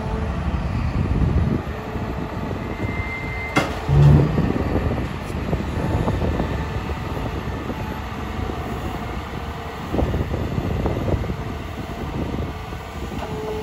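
Caterpillar M318F wheeled excavator's diesel engine running as the machine drives and works its hydraulic boom. A sharp click about three and a half seconds in is followed at once by a loud low thump.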